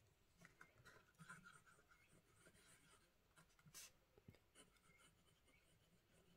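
Faint scratching of a thick-nibbed Manuscript Clarity fountain pen writing on notebook paper, in short strokes of handwriting, with one sharp tick just under four seconds in.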